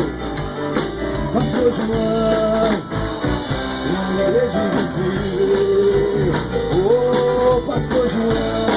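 Rock music with drums, electric guitar and electric bass: a Precision bass with active EMG pickups. A melody line glides up into long held notes several times.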